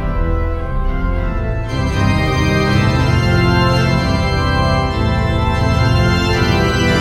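Instrumental background music of long held chords, the chord changing about two seconds in and again near five seconds.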